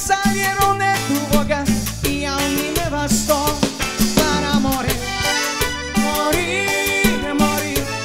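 A live band playing: accordion melody over electric bass, electric guitars and a drum kit keeping a steady beat.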